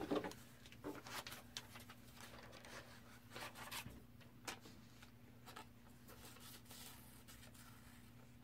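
Faint, irregular snips and rustles of scissors cutting a sheet of brown paper, over a low steady hum.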